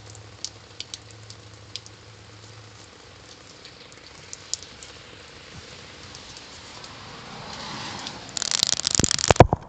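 Light rain falling steadily, with scattered sharp drip ticks. About eight seconds in, it swells into a loud run of crackling and thumps right on the microphone.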